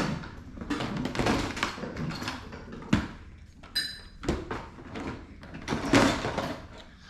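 Pop-it fidget toys being handled and set down: a run of rustles, soft taps and thunks, with a sharper knock about three seconds in and a brief high squeak just before four seconds.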